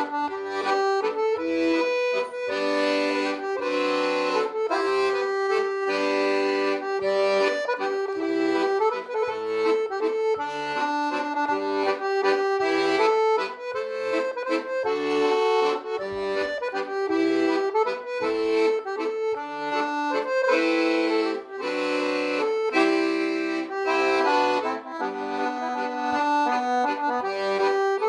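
Accordion music: a traditional-style tune of held notes and chords, played continuously.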